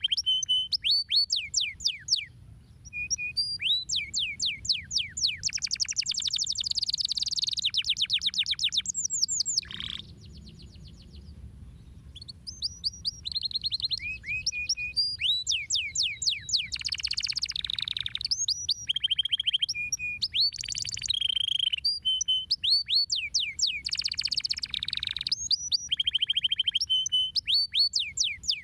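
Domestic canary singing long phrases of rapid trills and quick sweeping chirps. The song breaks off briefly about a third of the way through, then resumes.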